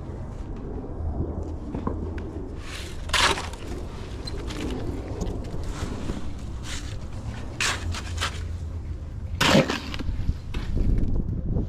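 A shovel scraping and digging into dirt, making irregular scrapes and crunches; the loudest strokes come about three seconds in and near the ten-second mark.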